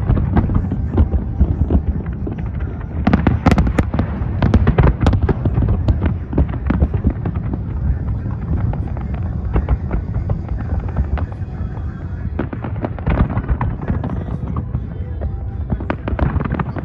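Large fireworks display: many aerial shells bursting together in a rapid, continuous run of bangs and crackles, thickest about three to five seconds in and again near the end.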